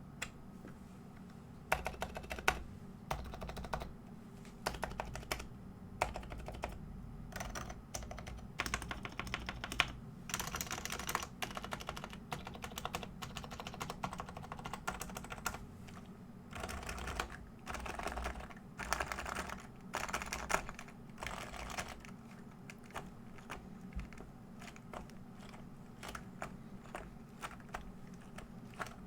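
Typing on a Realforce R2 keyboard with lubed Topre switches in a polycarbonate Norbaforce Mark II case: runs of quick keystrokes with short pauses between, thinning out near the end.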